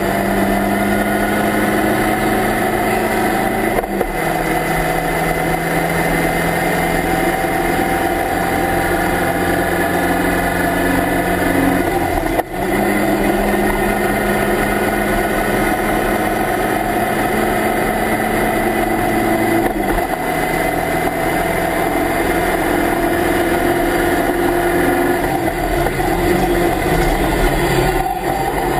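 Onboard sound of a Locost Lotus 7-replica race car at racing speed: the engine running hard under load, its note rising slowly and breaking off briefly three times, about four, twelve and twenty seconds in, with wind noise in the open cockpit.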